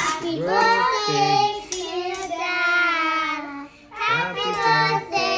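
Children singing held, gliding notes, with a short break about three and a half seconds in.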